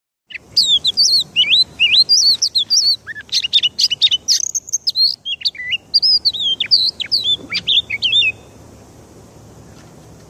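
Oriental magpie-robin (kacer) singing a loud, fast run of varied whistled phrases that slide up and down. The song cuts off suddenly about eight seconds in, leaving a faint steady hiss.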